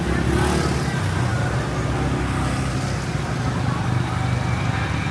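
A motor vehicle engine running steadily close by, a continuous low rumble over street noise.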